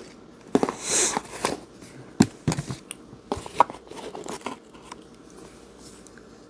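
Paper and cardboard packaging being handled: a short rustle about a second in and several sharp clicks and taps, settling down after the halfway point.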